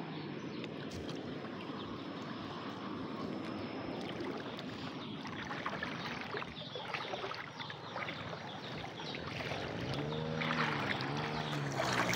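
Floodwater sloshing and splashing close by, a continuous noisy rush with sharper splashes from about halfway through. A short wavering pitched sound comes near the end.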